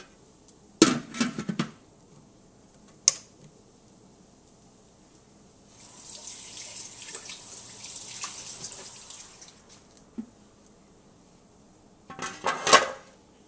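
Lid of a Ninja multi-cooker clattering as it is set on the cooking pot, with a sharp click a couple of seconds later. Then about four seconds of steady hiss that starts and stops abruptly. Near the end, another clatter as the lid is lifted off.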